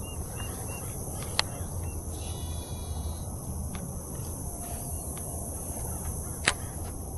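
Steady high-pitched insect drone, with a few short bird chirps early on and a brief bird call in the middle, over a low outdoor rumble; two sharp clicks break in, one about a second and a half in and one near the end.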